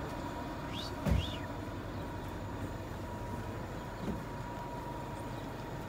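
Outdoor street ambience: a steady low rumble of vehicle traffic with a faint steady high tone over it, a dull thump about a second in, a short rising-and-falling chirp beside it, and a lighter knock about four seconds in.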